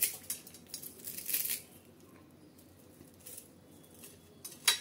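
Crisp shallow-fried grated-potato fritters crunching and crackling as they are crushed by hand, in several short bursts: the longest about a second in and a sharp one near the end. The crackle shows how crisp they are.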